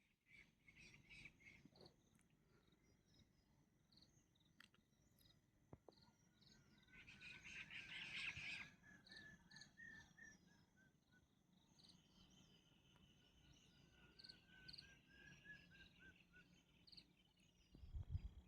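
Faint rural morning ambience: insects chirping in a steady train of short high pulses about two a second. A louder rasping call sounds for a second or so near the middle, and thin trilling calls come in later. There is a low thump near the end.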